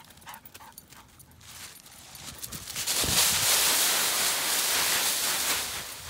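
Dogs' paws pattering faintly as they run, then, about three seconds in, a thud and loud crunching and rustling of dry fallen leaves as the dogs plunge and dig into a leaf pile.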